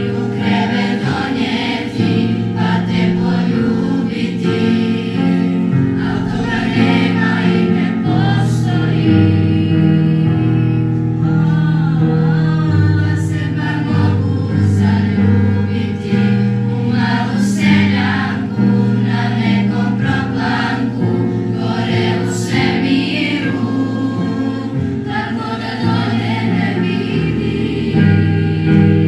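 A children's school choir singing a song together to a piano accompaniment, with sustained chords under the voices throughout.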